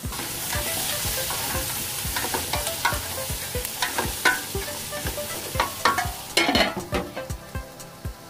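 Food frying in hot oil, sizzling, while a spatula stirs it with repeated clicks and scrapes against the pan. The sizzle starts suddenly and dies down over several seconds, and a louder scrape comes near the end.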